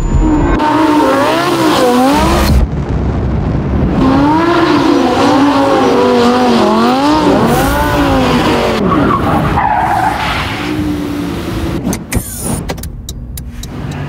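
Lamborghini Huracán drift car's V10 engine revving, its pitch rising and falling again and again, over tyre skid noise, with the sound changing abruptly several times and a few sharp clicks near the end.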